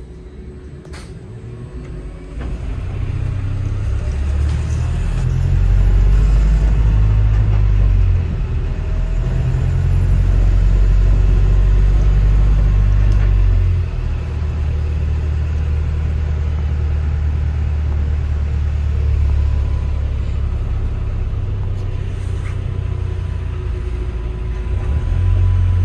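Low engine and drivetrain rumble of a city bus heard from inside the cabin as it drives. The rumble swells about two seconds in, then dips and builds again a few times.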